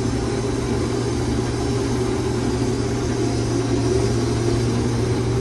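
Combine harvester running steadily while harvesting corn, heard from inside the cab: an even, unchanging low hum of engine and machinery.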